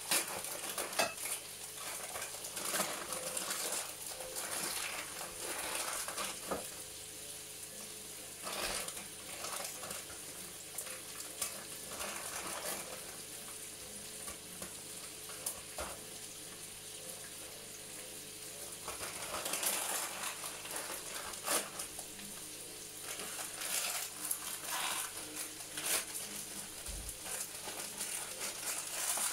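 Chicken pieces frying in a pan with a steady sizzle, with scattered clinks and clatter of utensils and dishes.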